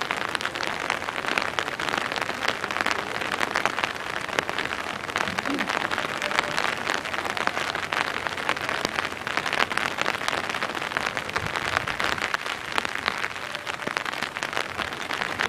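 Steady rain with a dense patter of small drops ticking close by.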